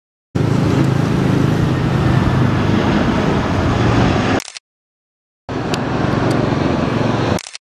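Jet engines of a four-engine Airbus A340 airliner passing low on approach: a steady, deep noise. It cuts off abruptly into dead silence about halfway through, then returns for a couple of seconds before cutting off again.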